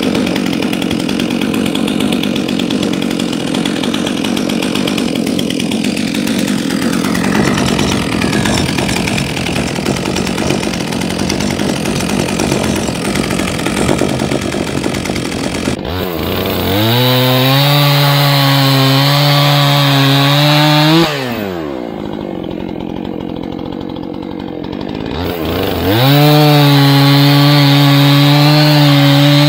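Stihl MS 400 two-stroke chainsaw run at full throttle: it revs up to a high steady pitch, drops back about 21 seconds in, then revs up again and cuts through a log. Before that, for about 16 seconds, there is rougher, uneven saw noise with no steady pitch.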